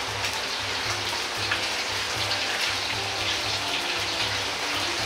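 Diced chicken thigh frying in a deep pool of hot oil in a wok: a steady, dense sizzle and bubbling as chopsticks stir and break up the pieces. This is the oil-blanching step, par-cooking the meat in oil before the stir-fry.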